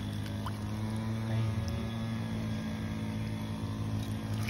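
A steady, low mechanical hum at an unchanging pitch, like an engine running at constant speed.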